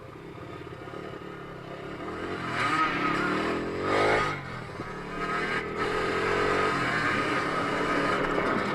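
Dirt bike engine revving: it climbs in pitch to a peak about four seconds in, drops back, then holds steady at higher revs.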